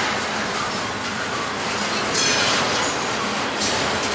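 Double-stack container train's well cars rolling past, a steady rumble and rattle of steel wheels on rail, with a brief high wheel squeal about two seconds in.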